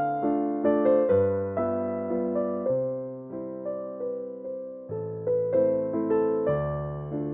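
Background music: a gentle piano melody over soft chords, its notes struck about twice a second and each fading away.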